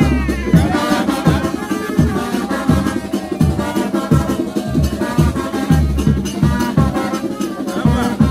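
Parade band music with drums and percussion playing a steady beat for the masquerade dancers.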